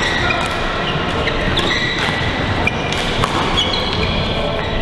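Badminton play on several courts: sneakers squeaking on the court mats and rackets hitting shuttlecocks, many short squeaks and sharp taps overlapping, echoing in a large sports hall.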